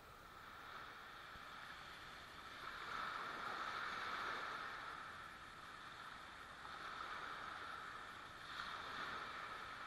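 Small waves washing gently onto a sandy beach: a soft, even rush of surf that swells and eases, louder a few seconds in and again near the end.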